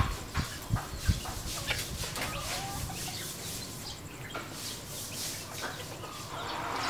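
Red junglefowl clucking while feeding: short scattered clucks and calls, with a few low knocks in the first second.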